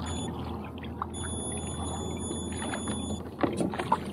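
A hooked kokanee salmon splashing and thrashing at the water's surface beside the kayak near the end, several quick sharp splashes. Under it is a steady low hum with water noise, and a thin high steady tone sounds for about two seconds in the middle.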